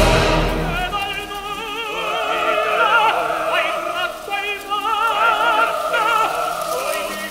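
Opera recording: operatic singing with wide vibrato on held notes.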